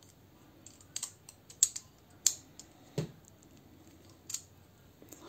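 Hard plastic toy parts clicking and tapping as a small plastic gun accessory for a transforming robot figure is handled and folded: a scatter of short, sharp clicks, several close together in the middle.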